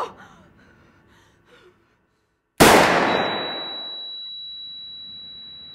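A single loud handgun shot a little over halfway into a short silence, its echo dying away over about two seconds, followed by a steady high-pitched ringing tone that holds on.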